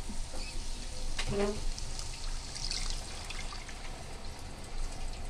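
Evaporated milk pouring into a hot frying pan of sautéed chicken and onions, a soft trickle of liquid.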